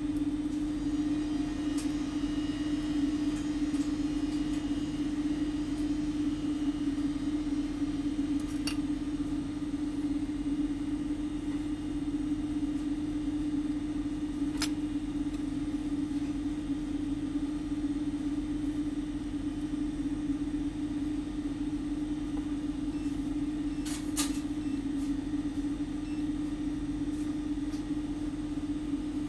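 Steady low electrical-sounding hum that does not change, with a few faint clicks about 9, 15 and 24 seconds in.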